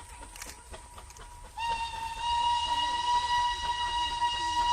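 Steam locomotive whistle sounding one long, steady single-tone blast that starts about a second and a half in.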